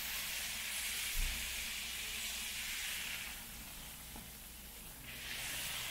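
Ground beef sizzling on a hot oiled Blackstone griddle as a burger ball is smashed flat under a cast iron burger press: a steady hiss that eases a little past halfway and swells again near the end. A soft low thump about a second in.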